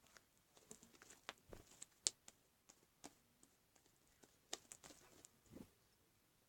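Sticky slime being poked and handled in a glass container: irregular small clicks and light taps in two clusters, with a couple of soft thumps.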